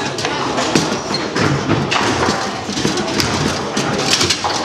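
Table football being played on a Bonzini table: repeated sharp knocks and clacks as the ball is struck by the rod-mounted figures and hits the table walls, with the rods thudding against their stops.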